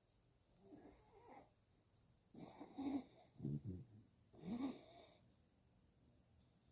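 Bichon Frise dog snoring in its sleep. One faint snore comes about a second in, then three louder snores follow about a second apart.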